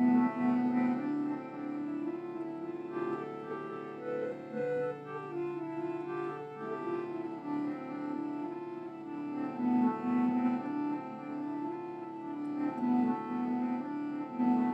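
Slow instrumental music: a melody moving in held notes over a sustained drone, with a piano-like or bowed-string sound.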